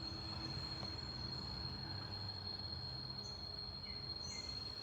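Background ambience with a steady high-pitched insect drone and a few short, faint chirps in the second half.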